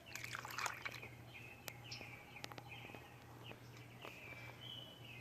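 Lego boat set down into a bowl of milk with a soft liquid splash about half a second in, followed by a few light plastic clicks. Faint bird chirps repeat in the background over a low steady hum.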